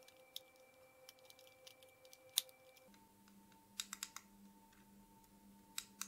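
Faint, scattered plastic clicks and taps: AA batteries being pressed into a plastic battery holder and the plastic remote-control case being handled and snapped shut, with the sharpest click about two and a half seconds in and a small cluster around four seconds.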